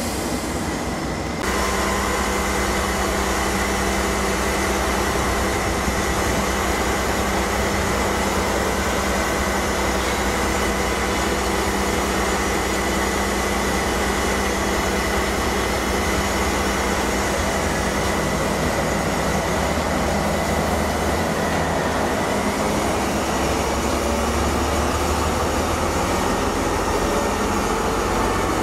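Briefly the rumble of a passing freight train. Then a Vossloh G1206 diesel locomotive's engine running steadily with a high whine, its note rising slowly in the last few seconds.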